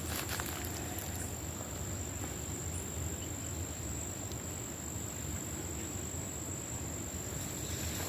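Steady, high-pitched insect drone, one unbroken tone.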